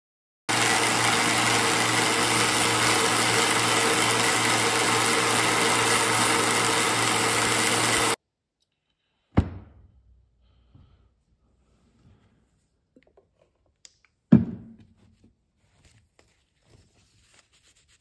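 Belt sander running steadily with the knife's wooden handle scales held against the belt. It cuts off abruptly after about eight seconds, and later come two sharp knocks several seconds apart and faint handling sounds.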